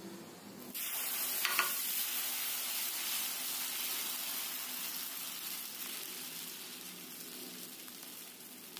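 Kodo millet dosa batter sizzling on a hot dosa tawa as a ladle spreads it in circles. The hiss starts suddenly about a second in and slowly fades.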